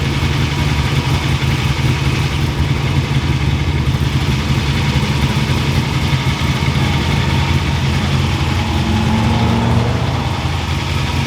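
Engine running steadily at idle, a loud continuous low drone, with a slight rise in pitch about nine seconds in.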